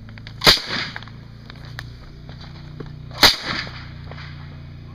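Two single gunshots from an Uzi submachine gun, about three seconds apart, each followed by a short echo.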